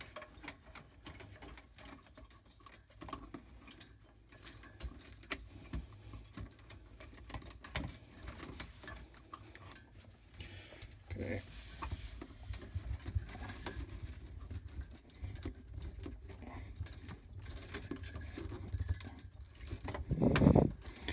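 Hands handling small parts and wiring inside a refrigerator's freezer compartment: scattered light clicks, clinks and rattles, with a louder thump near the end.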